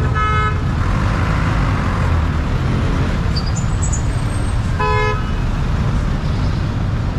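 Busy street traffic running steadily. A vehicle horn sounds at the start, stops about half a second in, and gives one short toot again about five seconds in.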